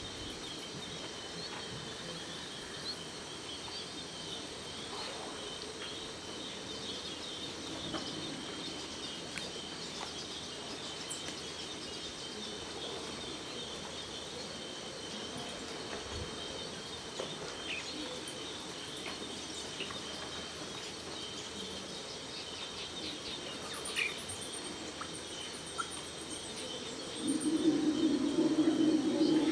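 Amazon floodplain forest at dawn: insects shrilling in a steady high chorus, with scattered short bird calls. Near the end a loud, low, rough sound comes in and keeps going.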